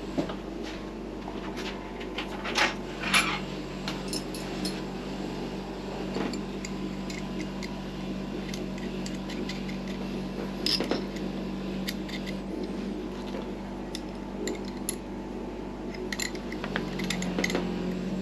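Metal clinking and scraping from cleaning rusty threads on engine casing studs, with scattered sharp clicks over a steady low hum.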